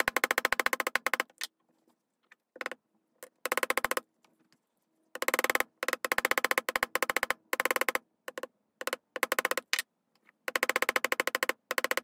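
A chasing hammer striking copper wire on a steel bench block, in rapid bursts of roughly ten strikes a second with short pauses between, as it flattens the end of 16-gauge wire.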